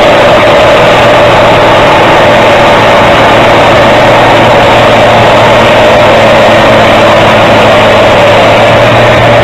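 Large tractor's diesel engine running loud and steady under heavy load as it churns its wheels through deep mud.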